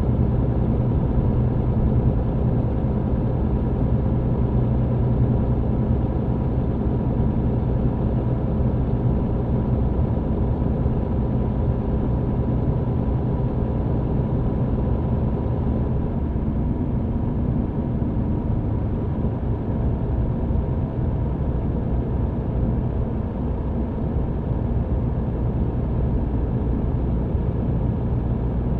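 MAN TGX truck engine running steadily under way, heard from inside the cab, with a steady hum of road and tyre noise.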